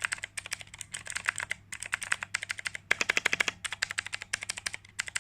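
Typing on a mechanical keyboard with clicky Zorro Blue switches (Cherry MX Blue clones): quick runs of sharp clicks broken by short pauses. The switches sound very clanky and noisy.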